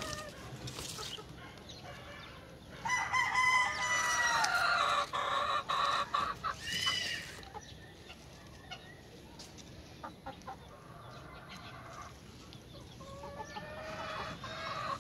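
A rooster crowing: one long, loud crow about three seconds in, and another crow starting near the end.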